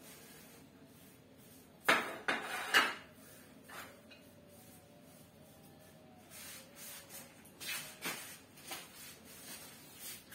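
Kitchen clatter: a few sharp knocks of dishes and objects on a table about two seconds in, then lighter knocks later on.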